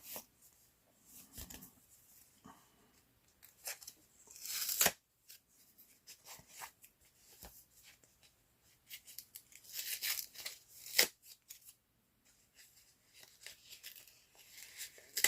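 Paper cards and stickers being handled: scattered rustles, crinkles and light taps, with a longer rustle about five seconds in and a cluster of them around ten to eleven seconds.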